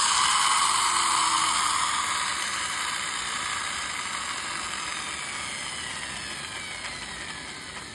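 Friction-flywheel motor of a 1:24 scale toy police car whirring freely after its wheels were spun against the floor, the gear whir slowly falling in pitch and fading as the flywheel runs down.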